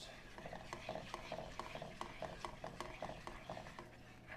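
A spatula stirring a reducing citrus butter-sugar syrup in a metal skillet, with short regular strokes several times a second and light clicks of the spatula against the pan.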